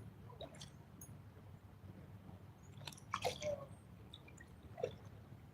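Faint wet squishes, drips and clicks from a freshly landed trout being handled, with a cluster of sharper clicks about three seconds in, over a low steady hum.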